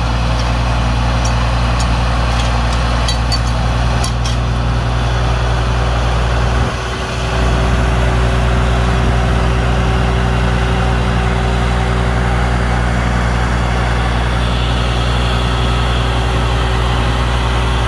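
Solis 26XL compact tractor's diesel engine running steadily under load while driving a PTO-powered flail mulcher through grass, with a steady hum from the spinning rotor. A few sharp ticks sound in the first few seconds.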